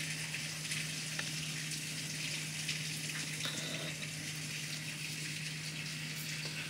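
Steady rain falling on a swimming pool and patio: an even, constant hiss, with a low steady hum underneath.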